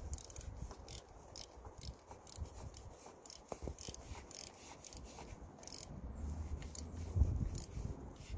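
Socket ratchet clicking in short, uneven runs as the new bolt securing a replacement camshaft position sensor is driven in, with a low rumble in the last couple of seconds.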